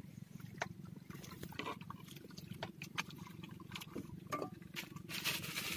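Small knife cutting a red onion on a wooden board: scattered light, irregular clicks and taps over a faint steady low hum.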